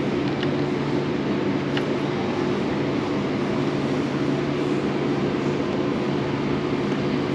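Steady mechanical drone with a constant low hum, unchanging throughout, with a few faint light clicks.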